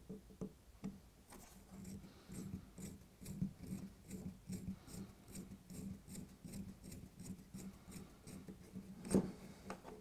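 Tiny Peco track screw being driven through a model railway point into the wooden baseboard with a small precision screwdriver: a faint run of quick clicks and scrapes, about three or four a second, as the screw is turned in.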